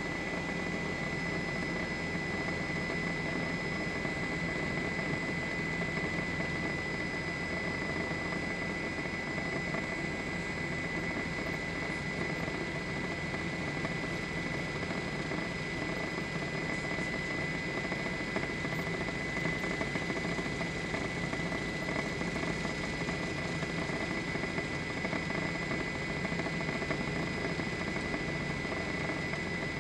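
Steady drone of a news helicopter's engine and rotors, heard from on board the aircraft, with a thin steady high tone over it.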